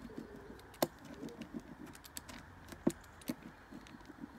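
A small hand roller (brayer) rolled under pressure over thin paper on a table, pressing the paper onto an inked leaf to transfer the print. Irregular clicks and rattles, the sharpest about one second in and twice more near three seconds.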